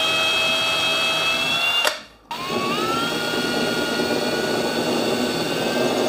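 Cordless combi drill with a 3mm bit boring a pilot hole into a beech dowel. The motor runs with a steady whine, stops about two seconds in, then spins up again with a rising whine and keeps running.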